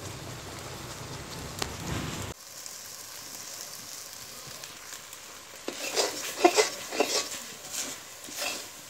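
A steady hiss cuts off about two seconds in, leaving thick, nearly cooked semolina (suji) sizzling softly in a black iron karahi over a wood fire. From about six seconds in, a steel spoon stirs and scrapes it against the pan in quick strokes, two to three a second.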